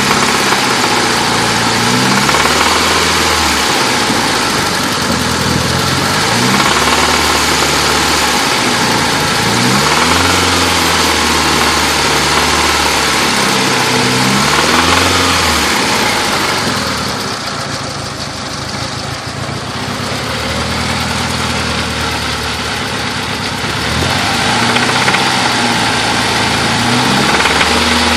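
1990 Eagle Talon engine running, its speed rising and falling every few seconds, with the intermittent knocking noise that the owner wonders may be piston slap.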